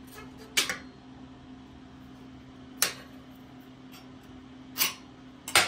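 A steel scribe scratching layout lines into sheet metal: a few short, separate scrapes, the last ones near the end louder and closer together, over a steady low hum.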